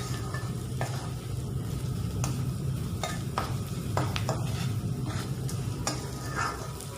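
A spatula stirring and knocking against a frying pan, sharp taps every second or so, while onions and drumstick leaves sizzle in oil. A steady low hum runs underneath.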